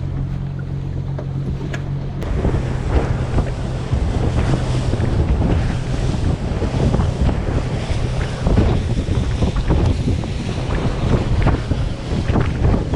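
Fishing boat's motor running over water, with wind buffeting the microphone. About two seconds in, the steady hum is covered by much louder, rougher wind and water noise.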